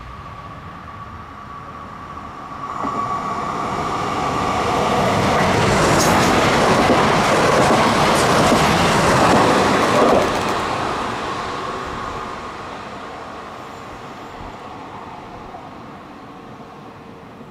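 ETR 104 electric multiple unit running through a station without stopping. A steady high tone at the start gives way to a rising rush of wheels on rail, loudest from about six to ten seconds in with a few sharp clicks, which then fades away as the train recedes.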